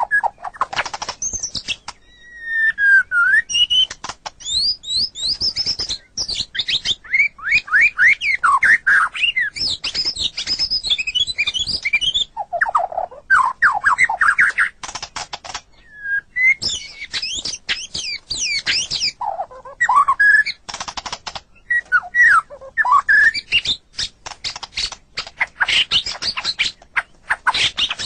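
White-rumped shama singing a long, varied song: loud gliding whistles rising and falling, broken up by fast chattering runs of sharp clicking notes, with hardly a pause.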